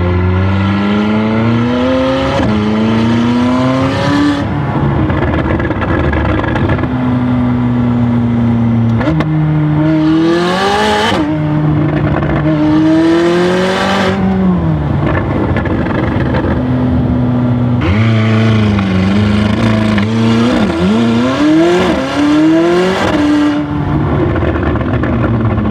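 McLaren 600LT's twin-turbo V8, tuned for crackles and pops and with its pre-cats deleted, revving hard several times. The engine note climbs and drops abruptly: twice in the first few seconds, twice more about ten seconds in, and in a quick series of short blips near the end, with a steady hold in between.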